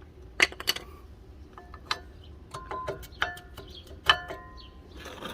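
Metal brake pads clinking and knocking as they are pulled off the caliper bracket and handled: a string of sharp metallic clicks, several with a short ringing tone, the loudest about four seconds in.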